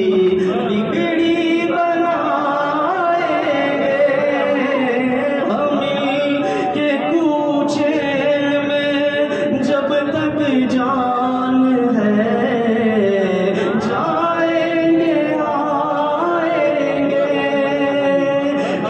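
Devotional Urdu kalam sung in long, held, ornamented melodic lines that glide between notes.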